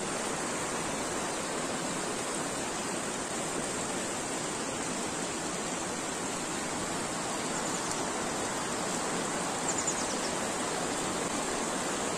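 Mountain river rushing over boulders: a steady, even hiss of flowing water. A few faint high chirps come through twice in the second half.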